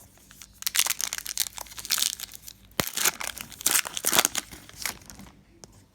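Foil trading-card pack wrapper being torn open and crinkled by hand, in irregular rustling bursts with one sharp snap about halfway through.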